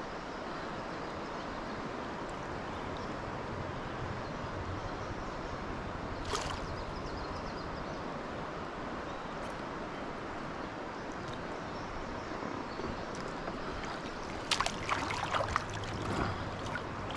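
Steady rush of flowing stream water. A brief sharp sound comes about six seconds in, and a short cluster of them near the end.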